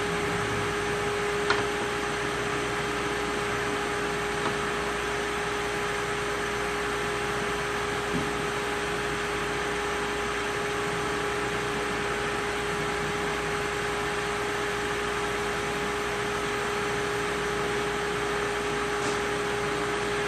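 Steady electrical hum with an even fan-like hiss, broken by a few faint clicks in the first several seconds.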